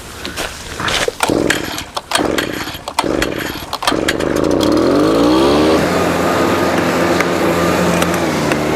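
Irregular cracking and snapping, like branches breaking, for the first few seconds. Then a motor speeds up over about two seconds and runs at a steady high pitch.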